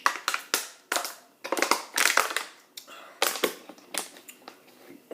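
Close-up chewing of crunchy food, with a quick, irregular run of loud crunches and crackles.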